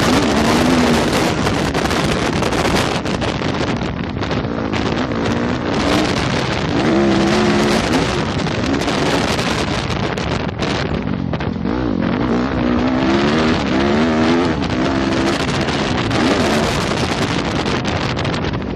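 Yamaha YZ250F motocross bike's single-cylinder four-stroke engine revving up and down repeatedly as it is ridden hard, under loud wind rush over the microphone.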